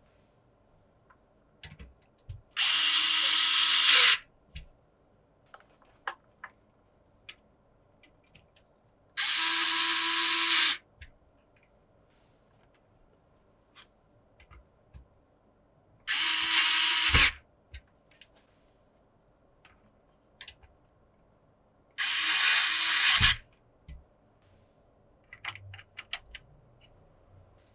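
A small power driver running in four short bursts of about a second and a half each, spaced several seconds apart, as screws are driven. Light clicks and taps of hardware handling come between the bursts.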